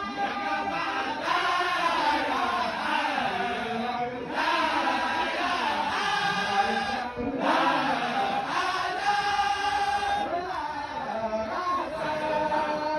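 A group of voices chanting a Sufi zikr together, in phrases of about three seconds with brief breaks between.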